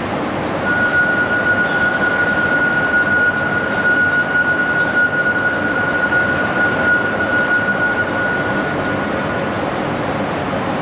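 Renfe Cercanías Civia electric commuter train pulling slowly into the platform, a steady high squeal, typical of its brakes, starting about a second in and stopping shortly before the end, over the train's low rumble in the station hall.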